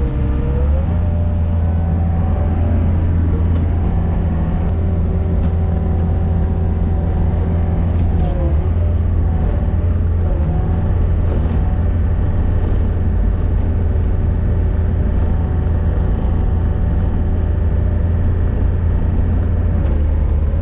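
Gehl RT65 tracked skid steer's diesel engine running steadily under load while pushing snow, a loud low drone with a higher whine that dips in pitch briefly twice around the middle.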